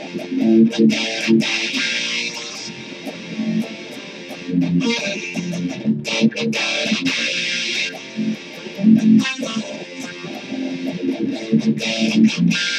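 Electric guitar being played: a riff of picked notes and chords that changes pitch throughout, with recurring stretches of brighter, hissier strumming.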